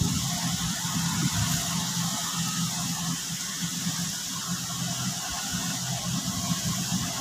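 A heavy diesel engine running steadily at low revs, a low hum with a faint hiss above it.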